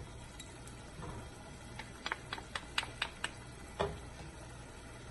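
Light tapping on an aluminium pressure-cooker pan as spice powder is knocked out of a small bowl into it: about eight quick clicks in a second and a half, then one duller knock.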